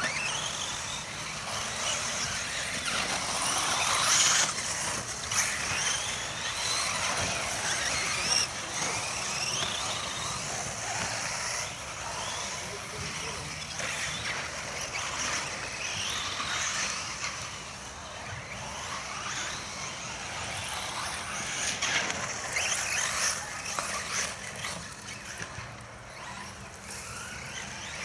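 Radio-controlled off-road racing buggy's motor screaming, rising and falling in pitch again and again as it accelerates and brakes around a dirt track, loudest about four seconds in and again around twenty-two seconds.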